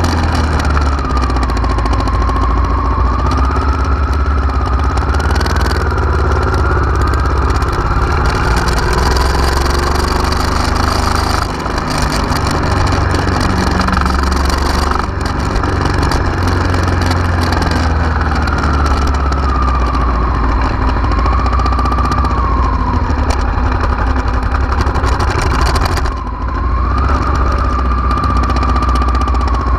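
Honda Africa Twin RD04's 742 cc V-twin engine idling steadily, with a thin whine above it that drifts slowly up and down in pitch. The level dips briefly twice.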